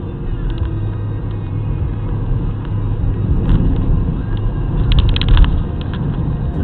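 Car driving: a steady low rumble of engine and road noise, with a short burst of clicks or rattles about five seconds in.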